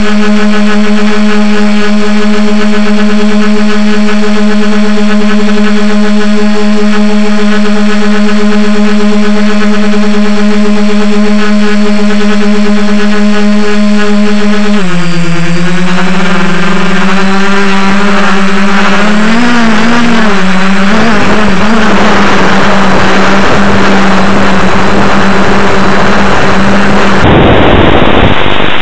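DJI F450 quadcopter's brushless motors with props, picked up loudly by the onboard camera and holding a steady hum. About halfway the pitch dips and wavers as the throttle changes, and a rushing hiss of wind or noise then swamps the motor tone, turning duller near the end.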